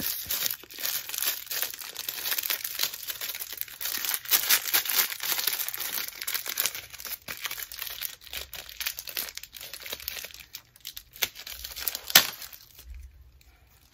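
Hands working open the small wrapping of a pair of earrings: a run of crackling and rustling as the packaging is handled and torn, thinning out after about ten seconds, with one sharp click near the end.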